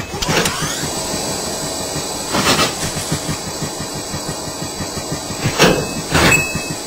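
Treadmill running at high speed: its motor whine rises in pitch over the first second and then holds steady, over fast thumping of feet on the moving belt, with louder thuds about two and a half and five and a half seconds in.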